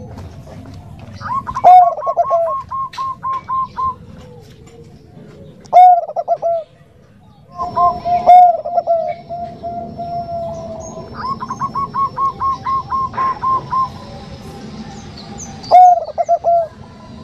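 Bangkok-strain zebra dove (perkutut) cooing in repeated phrases: runs of rapid, evenly spaced short notes and louder rolling coos, with one longer drawn-out note near the middle.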